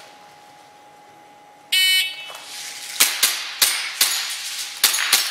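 Shot timer's start beep, a short high tone about 1.7 s in, then a fast string of airsoft pistol shots, each BB clanging off a steel plate, roughly two to four a second.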